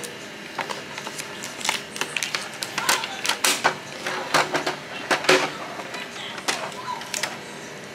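Hands working to open a small container or package: a run of irregular clicks, taps and rattles, busiest in the middle.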